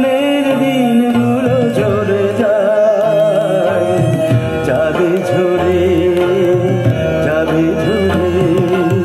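A Bengali song played from a vinyl LP on a turntable: a male voice sings a wavering melody over tabla and instrumental accompaniment.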